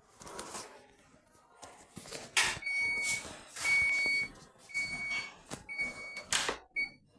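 An electronic beeper on an Electrolux W555H professional washing machine sounding a string of beeps about once a second: four half-second beeps, then a short one near the end. Loud bursts of noise and knocks come in between.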